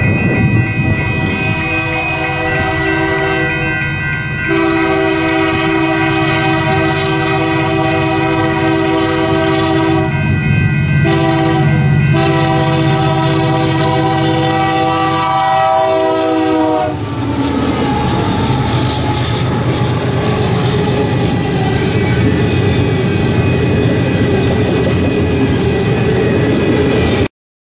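Diesel locomotive's air horn sounding a long blast, a short one and a long one at a grade crossing, its chord dropping in pitch as the locomotive passes. The train then rolls by with a steady rumble and wheels clacking over rail joints, until the sound cuts off suddenly near the end.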